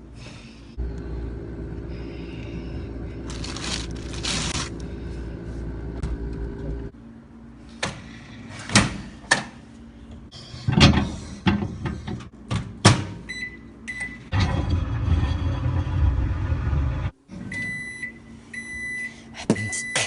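A microwave oven running with a steady hum. From about eight seconds in, sharp percussive mouth clicks and beats of beatboxing come in over it, then repeated high beeps near the end.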